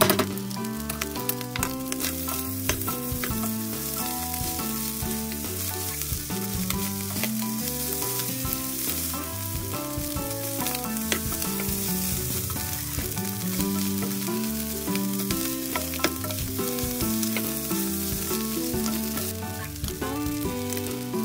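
Fried rice sizzling in a nonstick wok as it is stir-fried, with a slotted spatula scraping and tapping against the pan many times. Background music with a melody and bass plays underneath.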